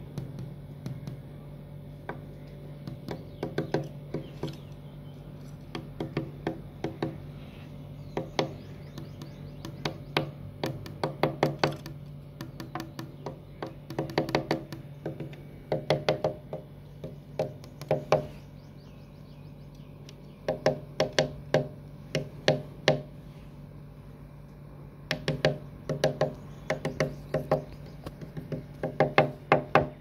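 Woodpecker and a finger knocking back and forth on a window pane: short runs of three to six quick, sharp knocks on the glass, one run every second or two, the loudest near the middle and end.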